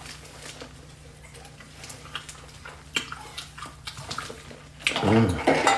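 Wet eating sounds from seafood boil: quiet sucking and smacking with scattered small clicks. About five seconds in, a wordless voiced sound takes over, a hum of enjoyment.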